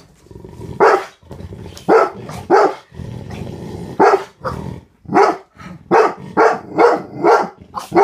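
Pit bull barking hard and repeatedly in sharp, separate barks that come faster in the second half: defensive warning barks at a person in a clown wig and mask, the dog close to attacking.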